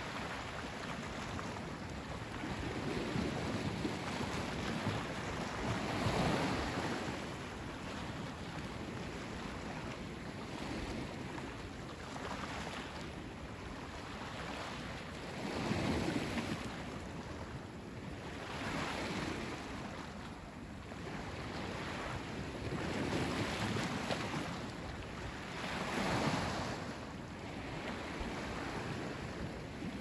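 Waves breaking and washing up on the shore, each one swelling and fading over a few seconds.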